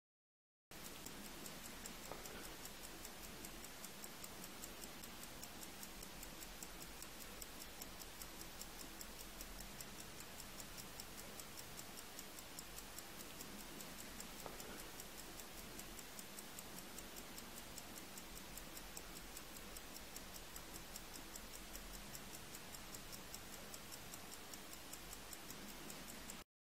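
Mechanical watch movement ticking: the balance and escapement beat in a rapid, even rhythm of several ticks a second, faint over a steady hiss.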